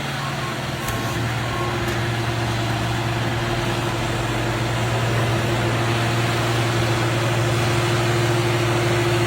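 Heavy machine's engine or hydraulic power unit running steadily with a low, even hum. For the first couple of seconds a vehicle's reversing alarm beeps in a regular pulse and then stops.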